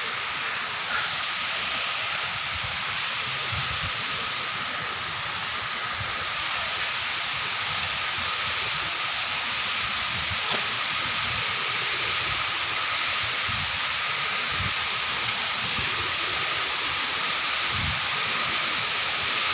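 Waterfall's water rushing as a steady, loud hiss, with a faint steady high ringing tone over it and scattered low thumps.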